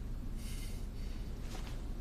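Quiet room tone with a soft breath about half a second in and a faint tick near the end.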